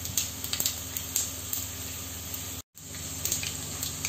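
Cumin, mustard seeds and garlic sizzling in hot oil in a small frying pan, a tempering for dal: a steady hiss with frequent irregular small crackles and pops. The sound cuts out for a moment about two-thirds through.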